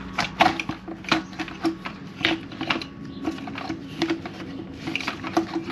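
Irregular clicks and knocks of hand tools and parts being handled in an engine bay, about two or three sharp ticks a second.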